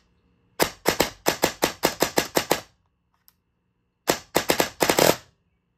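Airsoft electric rifle with an 18:1 DSG gearbox and SHS motor fired on semi-auto with rapid trigger pulls. A quick string of about a dozen sharp shots, roughly six a second, comes first, then a shorter string of six or seven about four seconds in.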